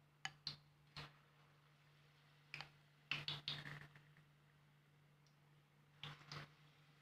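Quiet kitchen clicks and taps in a few short clusters, from battered tempe patties being coated in a ceramic bowl and dropped into hot frying oil, over a faint steady hum.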